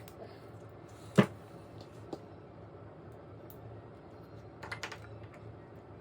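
Sharp clicks and light taps of hands working on keypad door-lock hardware: one loud click about a second in, a fainter one near two seconds, and a quick cluster of clicks near five seconds.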